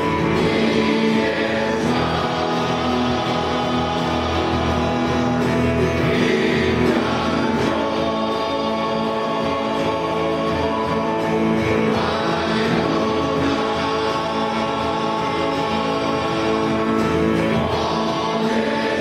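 Men's choir singing a slow worship song, many voices together in sustained sung lines.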